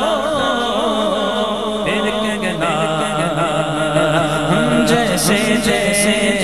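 Male voices singing an Urdu naat in a long, wavering melismatic line, over a steady low drone.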